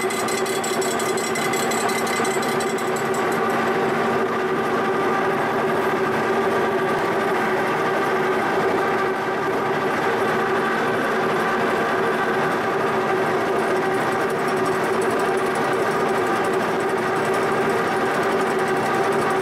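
Milling machine running a face mill across the flange of a cast iron exhaust manifold, resurfacing the warped mounting face: a steady machining hum with several held tones, unbroken throughout, its high hiss easing off after about three seconds.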